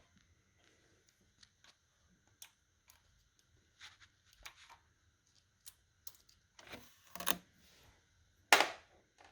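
Scattered small metallic clicks and clinks from working a valve-spring compressor tool and valve-train parts on a V8 cylinder head, with two louder knocks about seven and eight and a half seconds in.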